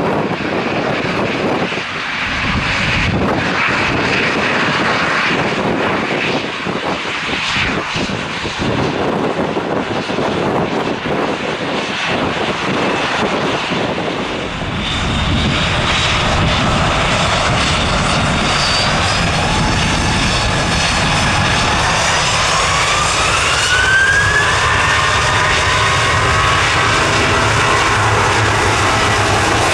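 Jet airliner engines, with gusty wind buffeting the microphone in the first half. About halfway through the engine noise steps up and a turbine whine rises in pitch, then holds steady, as when the engines spool up to power.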